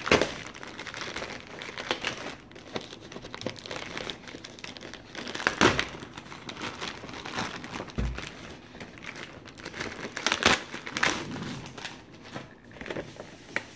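Grey plastic poly mailer bag crinkling and rustling as it is handled and pulled open, with a few louder sharp crackles and one low thump partway through.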